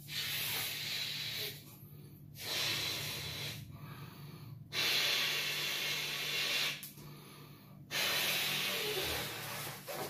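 A man blowing up a pink spiral latex balloon by mouth: four long breaths rush into it, with short pauses between them to inhale.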